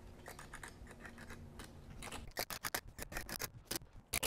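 Faint low hum, then from about two seconds in a run of quick, irregular sharp clicks, several a second.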